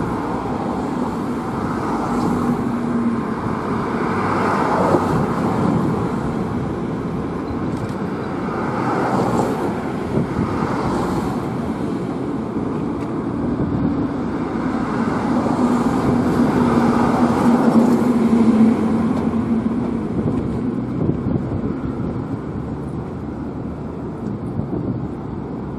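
Road traffic passing close by: a steady rush of tyres and engines that swells and eases as vehicles go past, with a low engine hum standing out about two seconds in and again from about fifteen to nineteen seconds.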